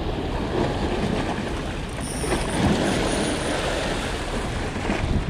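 Sea waves washing and splashing against the boulders of a rock breakwater, with wind rumbling on the microphone.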